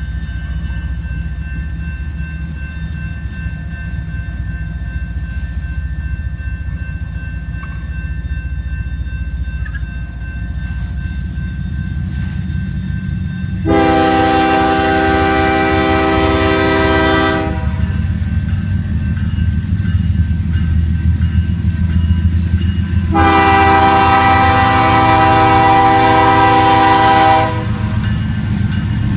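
BNSF ES44AC diesel locomotive approaching with a steady low rumble, sounding its multi-note air horn in two long blasts of about four seconds each, the first about halfway through and the second near the end.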